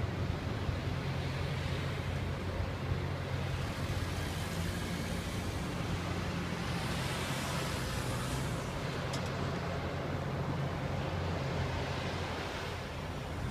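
Loram rail grinder train working slowly past: its diesel engines drone steadily, under a broad hiss from the grinding stones on the rails that swells through the middle.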